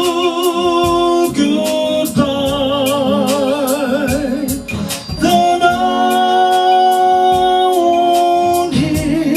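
A sung ballad: a voice holding long notes with vibrato over instrumental backing with a steady beat.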